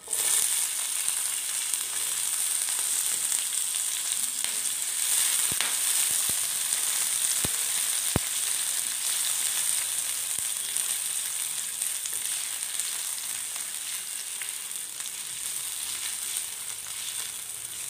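Chopped green capsicum sizzling in hot oil in a frying pan. The sizzle starts suddenly as the pieces go in and keeps up steadily while they are stirred with a wooden spatula, with a few light clicks of the spatula against the pan about midway.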